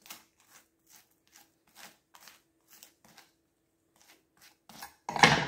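Metal table knife scraping Vegemite across dry toast in short strokes, roughly two a second, spreading it very thinly over the slice. A louder brief noise comes near the end.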